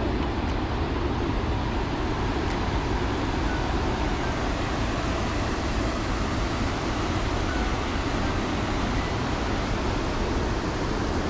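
Water pouring through a dam's three slightly opened spillway shutters: a steady, loud rushing noise.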